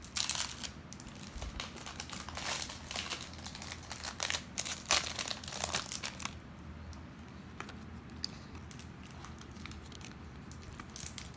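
Plastic wrapper of a mini Pokémon card booster pack crinkling and tearing as it is opened by hand. Dense irregular crackles for about the first six seconds, then quieter with only a few faint clicks.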